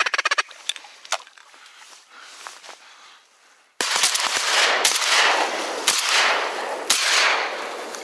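Shotgun shots at flying ducks: a first shot nearly four seconds in, then three more about a second apart, each followed by a long echoing tail.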